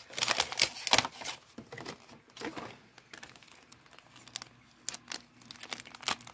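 Clear plastic packets of Color Street nail strips crinkling and clicking as they are handled and shuffled: a dense run of crackles in the first second or so, then scattered light clicks.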